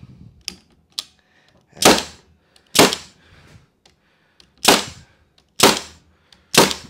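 Pneumatic air stapler firing staples into the wooden top bars of medium beehive frames held in a frame jig. Five sharp shots, roughly a second apart, with a few lighter clicks between them.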